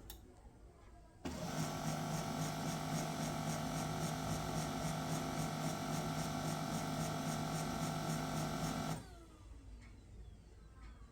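HP LaserJet MFP 1136's scanner mechanism running while the printer initialises: a steady mechanical hum with fixed tones that starts about a second in and cuts off abruptly after about eight seconds. The scanner noise that comes with the printer's E8 error.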